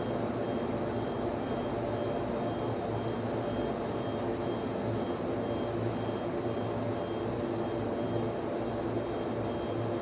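Steady whir of server and network switch cooling fans, with several low hum tones and a faint high tone pulsing on and off at a regular pace.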